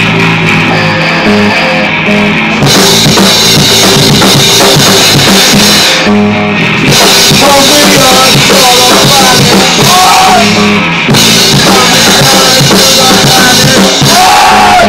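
Live rock band playing loud: a drum kit driving the beat under electric guitar and bass guitar.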